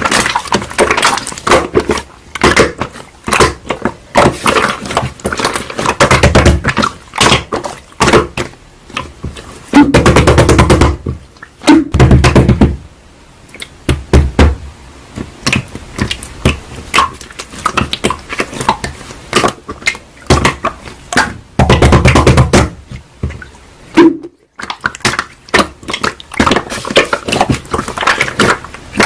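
Slime being squished and pressed by hand: dense runs of wet clicks and pops, with a few heavier, fuller squelches about 6, 10 and 22 seconds in.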